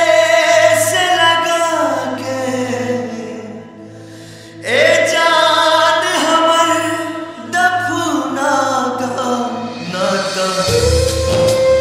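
Sad Bhojpuri song: a vocal sung over a sustained backing. The voice fades out about three and a half seconds in, and a new line starts with an upward sweep about a second later. A deep bass comes in near the end.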